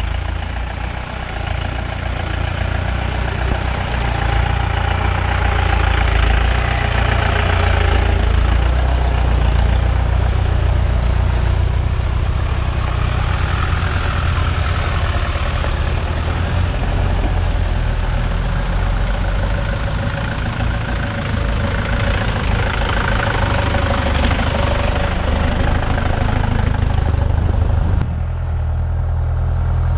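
Mahindra off-road jeep engines running steadily as the vehicles crawl along a rough dirt track: a continuous low engine drone with road and body noise over it. The sound changes abruptly near the end.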